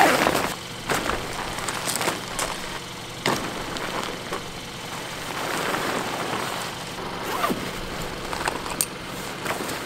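Decathlon 2 Seconds Easy pop-up tent being folded down: its nylon fabric rustling and crinkling as it is gathered and pressed together, with scattered crunches from the gravel underfoot.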